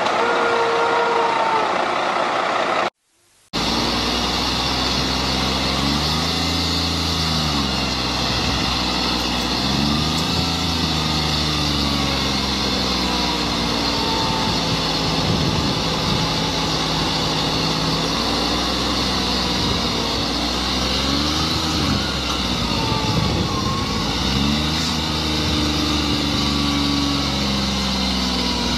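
Diesel engine of a John Deere farm tractor running under load as it pulls a loaded trailer through a muddy field. The engine speed rises and falls now and then. A different vehicle sound is heard briefly at the start, before a short break.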